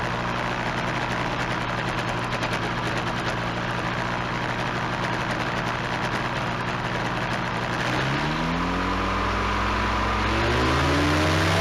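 Small aircraft engine running steadily at low revs, then revving up about eight seconds in, its pitch rising.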